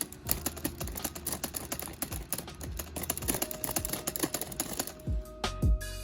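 Rapid clicking and clattering of LEGO typewriter keys being pressed, plastic key levers tapping in quick succession over background music. About five seconds in, the clicking stops and the music with a beat takes over.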